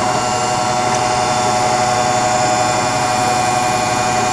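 Brown & Sharpe 814U Valumaster universal cylindrical grinder running under power, its electric drives giving a steady whine with one strong pitch over a machine hum.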